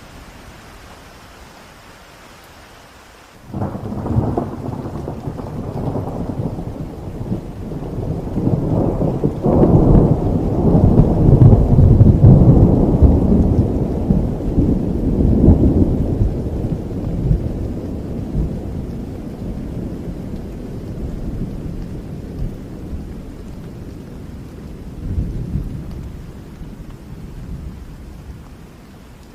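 Heavy rain falling with a long roll of thunder. The thunder breaks in suddenly a few seconds in, swells to its loudest about halfway through, then rumbles away slowly, with a smaller swell near the end.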